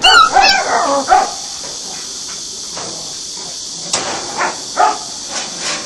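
Jindo dogs barking: a quick burst of several loud barks at the start, then a few quieter barks near the end, over a steady high hiss.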